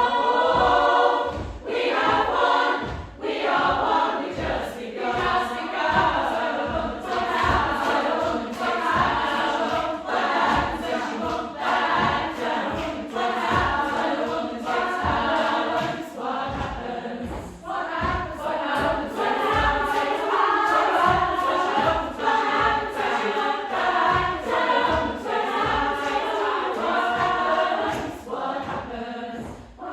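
Upper-voices chamber choir singing in several parts, over a regular low thump about two to three times a second.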